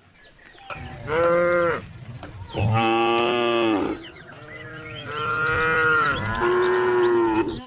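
Cattle mooing: a series of long, drawn-out moos from cows, one call after another with short gaps between them.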